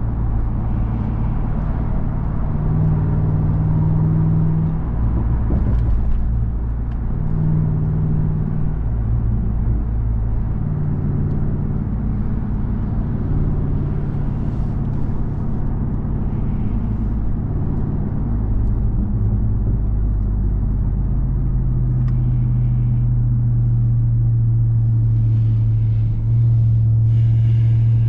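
2021 Ram 1500 TRX's supercharged 6.2-litre Hemi V8 running steadily while driving. Its low drone changes in pitch and level every few seconds as the throttle is eased on and off.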